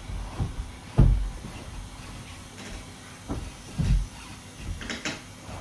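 A few scattered dull thumps and knocks of household handling, the loudest about a second in and two more a little past the middle.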